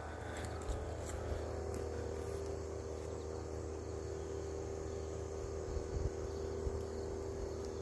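A steady outdoor background hum: a low drone with a faint higher tone held throughout, and a few soft low knocks.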